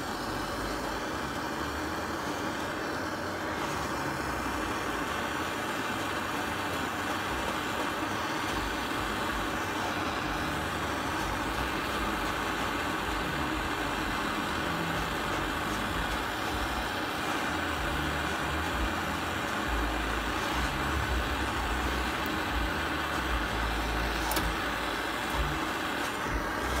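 Hand-held gas soldering torch flame burning with a steady hiss while heating a copper pipe joint, with some low bumps in the last few seconds.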